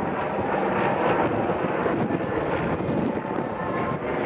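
Aircraft engine noise from a formation of warbirds and a jet in flight, steady throughout.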